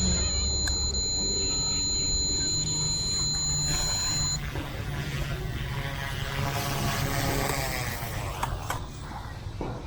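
Yuxiang F180 remote-control helicopter flying, with a steady high-pitched motor whine that stops about four seconds in; the rotor and motor noise then fades near the end.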